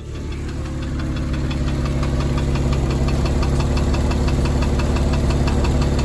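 Porsche 996's M96 flat-six engine idling roughly while misfiring, with a fast, regular metallic knocking from the bottom of the engine.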